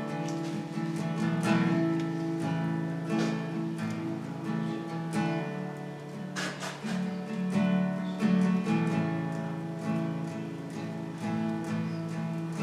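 Instrumental worship music: a guitar strumming sustained chords, with no singing.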